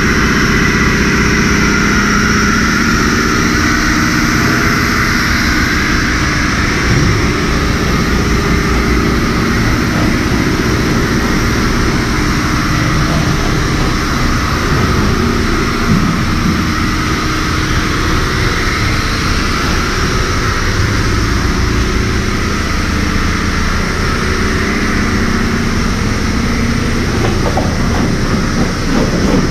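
High-pressure water jet hissing steadily as it is sprayed onto a truck trailer, over a continuous low mechanical drone.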